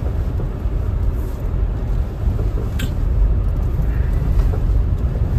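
Steady low rumble of a car's tyres and engine heard from inside the cabin while driving over a badly damaged highway, with one brief click near the middle.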